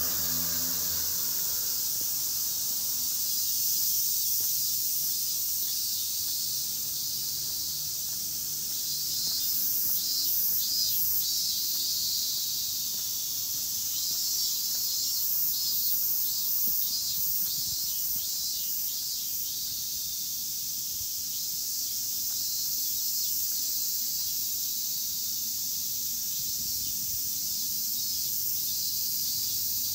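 Cicadas droning in a steady, high-pitched chorus, with a faster pulsing call coming in over it from about nine to eighteen seconds in.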